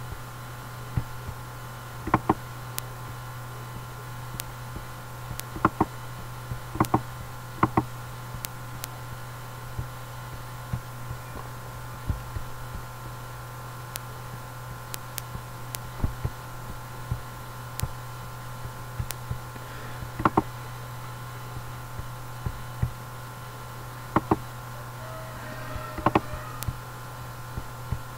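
Computer mouse clicking now and then, some clicks in quick pairs, over a steady low hum.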